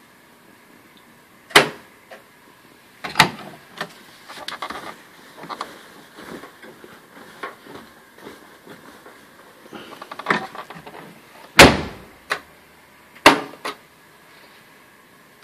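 Whirlpool Duet front-load washer in its spin cycle, knocking and banging irregularly. Five loud bangs a second or more apart come with bursts of lighter rattling knocks in between, over a faint steady whine.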